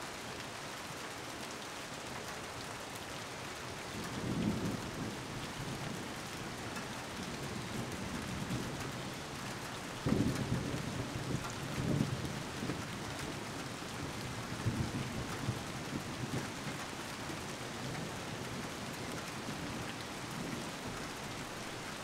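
Steady rain with thunder rumbling in the distance: a low rumble about four seconds in, a louder, longer one at about ten seconds, and weaker rumbles after.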